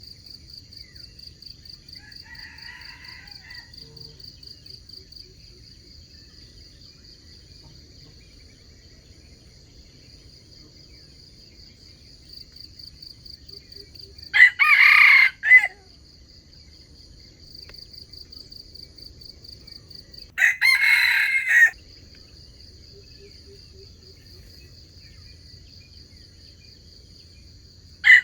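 Junglefowl (wild chicken) rooster crowing twice in the middle, with a third crow starting at the very end, each crow short and about a second long. Insects, crickets, keep up a steady pulsing trill underneath.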